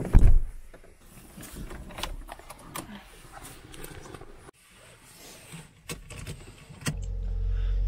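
Small clicks and rustles of a key and a seatbelt inside a car, with a loud thump just after the start; about seven seconds in, the car's engine starts and settles into a steady low running rumble heard from inside the cabin.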